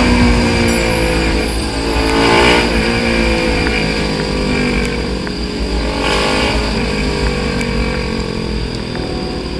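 Sport motorcycle engine running under way, its pitch sliding slowly lower as the bike eases off, with two brief rises and dips in pitch. Heavy low wind rumble on the microphone from riding.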